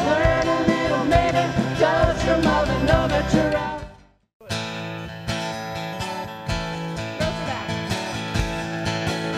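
Live band music: women singing over bass, drums and guitars, fading out about four seconds in to a brief silence. Then a new song starts abruptly with strummed acoustic guitar, bass and drums.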